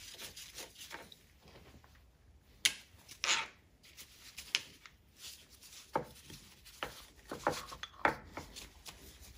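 Scattered metal clinks, knocks and scrapes as a Multifix quick-change tool post is taken apart by hand: the nut is unscrewed from its stud and the heavy tool post body is worked loose from it. The sharpest knocks come a little under three seconds in, with more near six and eight seconds.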